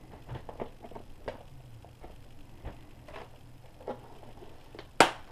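Small clicks and knocks of a pistol slide being laid into a fitted blue plastic case and the lid closed, with one sharp snap near the end as the case is pressed shut.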